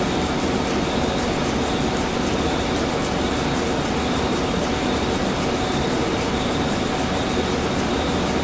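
Steady running noise of heavy industrial machinery, with faint scattered high ticks.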